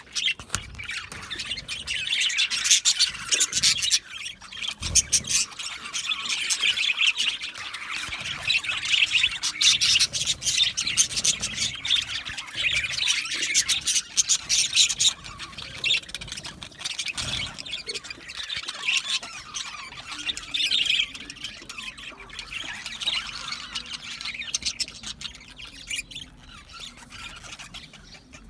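Budgerigars chattering: a dense, continuous stream of rapid chirps and squawks, thinning out near the end.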